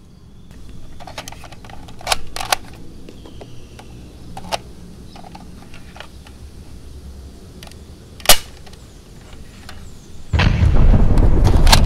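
A few sharp plastic clicks and snaps from handling a toy grenade launcher, the loudest about eight seconds in. About ten seconds in comes a sudden loud explosion that keeps rumbling.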